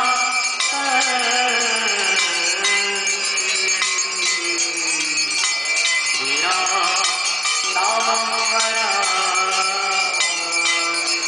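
A male voice sings a Hindu aarti hymn in long, sliding held notes, with bells ringing continuously behind it.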